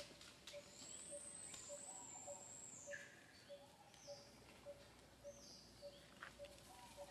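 Faint bird calls: a low note repeated evenly about twice a second, with a few high whistled chirps that slide down in pitch.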